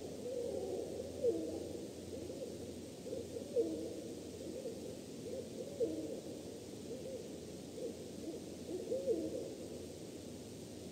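Great horned owl calling: short, wavering calls repeated about twice a second, fading toward the end, over a steady background hiss.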